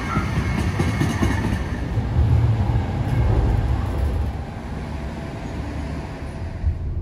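Light rail train running: a steady low rumble of wheels on track.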